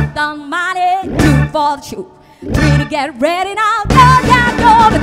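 Woman singing a rock and roll song with a live band of keyboard, drums and bass. The band plays short hits with her voice alone between them and a brief pause just after two seconds in, then the full band comes back in just before four seconds in.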